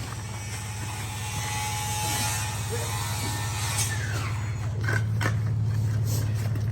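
Delivery truck engine running steadily, with a few mechanical clicks and a brief falling whine about four seconds in, as a large door is unloaded from the truck.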